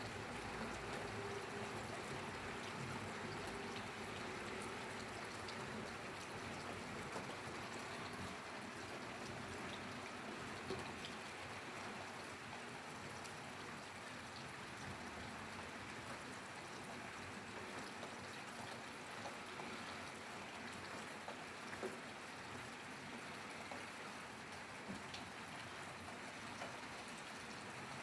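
Steady rainfall: an even hiss with scattered single drops ticking now and then.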